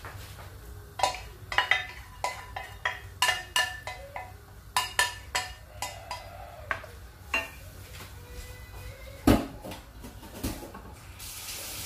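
Stainless steel saucepan knocking against a stainless steel frying pan: a quick run of ringing metal clinks over about six seconds, then a heavier knock about nine seconds in.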